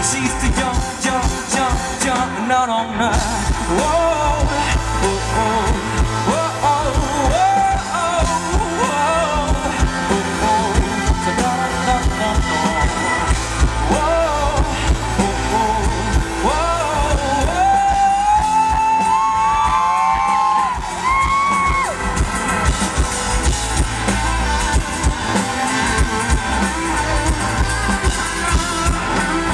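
Live band music: a man sings wordless, gliding vocal lines that rise and fall over strummed acoustic guitar and a drum kit. The voice drops out about two-thirds of the way through, leaving the band playing.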